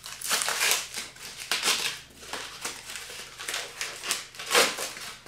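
Packing paper rustling and crinkling as it is pulled off a glass jar by hand: a run of irregular rustles, the loudest one near the end.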